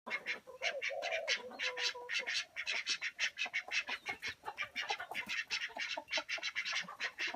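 Ducks quacking in quick, repeated calls, several a second. A longer held call sounds over them from about half a second to two seconds in.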